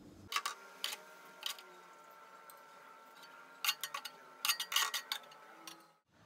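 Metal tongs clinking against a nonstick frying pan while shrimp are picked out and served: a few clicks near the start, then a quicker cluster of clinks about two-thirds through.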